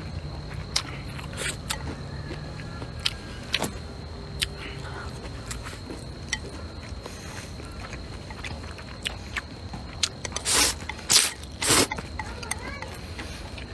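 A person slurping and chewing stir-fried rice noodles up close: scattered small wet mouth clicks, then a run of loud slurps about ten to twelve seconds in.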